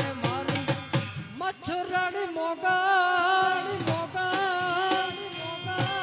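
Live Gujarati folk music: a male voice sings long, wavering held notes over harmonium and keyboard, with dhol drum strokes keeping the beat.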